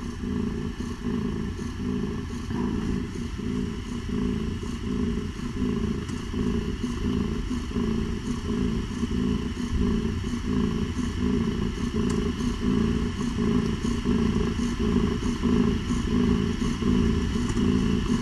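Nursing mother cat purring steadily: a continuous, close, low rumble with a fine rapid pulse.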